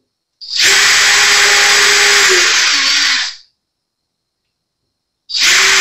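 Cordless drill boring small pilot holes in a guitar's wooden headstock for the tuner mounting screws. The motor runs steadily for about three seconds, its pitch sags just before it stops, and it starts again near the end.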